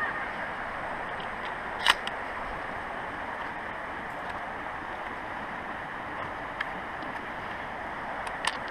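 A few sharp metallic clicks from a shotgun being handled and loaded with shells, the clearest about two seconds in and two more near the end, over a steady rush of flowing water.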